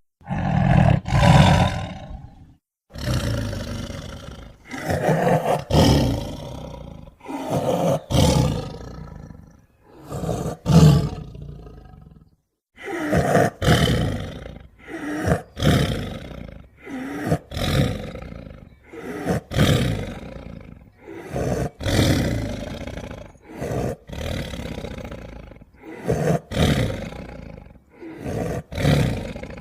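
Yangchuanosaurus dinosaur roar sound effects: a string of more than a dozen separate roars and growls, each one to two seconds long, with short pauses between them.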